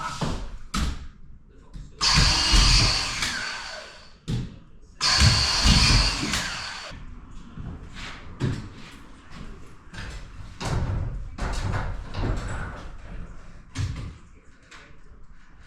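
A handheld power tool such as a drill or screwdriver runs in two bursts of about two seconds each, the second about a second after the first ends, followed by scattered knocks and thuds.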